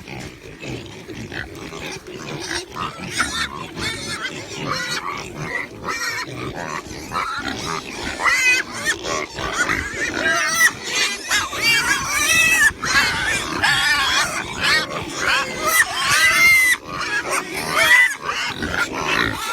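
Pigs and piglets grunting, with short high-pitched squeals that come thick and fast from about eight seconds in.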